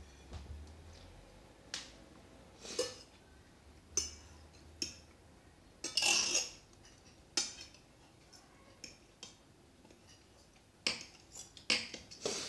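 Cutlery clinking and scraping on plates during a meal: short, irregular clinks, the loudest and longest about six seconds in.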